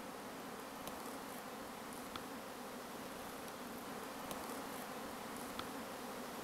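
Many honey bees buzzing in a steady hum as they fly around the hives, with a few faint clicks.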